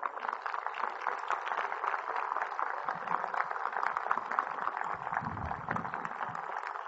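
Large audience applauding, a dense, steady clapping that holds at an even level throughout.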